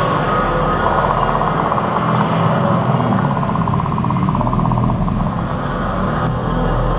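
Steady rumbling ambient drone from an immersive installation's soundtrack, with a fluttering mid-range texture near the middle.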